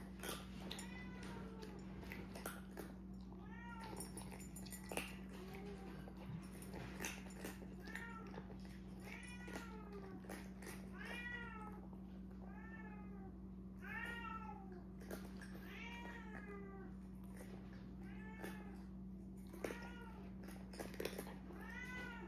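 A domestic cat meowing over and over, short rising-and-falling meows about one a second, growing louder about halfway through. Small clicks of cats eating from ceramic bowls and a steady low hum lie underneath.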